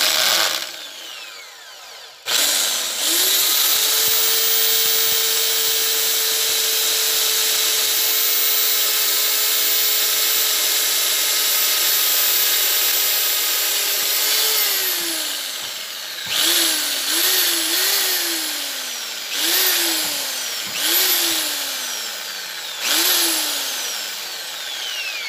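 Handheld electric drill with a 2 mm bit drilling a pilot hole into a metal tube. The motor spins up a couple of seconds in, runs at a steady whine for about twelve seconds, then winds down. Six short trigger bursts follow, the whine falling away after each one.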